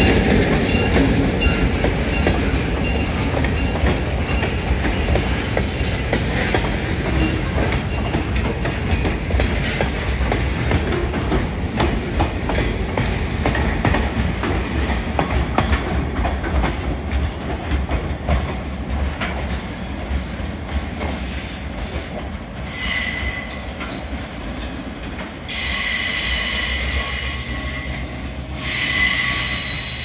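Freight train of tank cars and hopper cars rolling past: steady rumble of the wheels with repeated clicks over the rail joints. In the last third, high-pitched wheel squeal comes in three stretches as the cars take a curve.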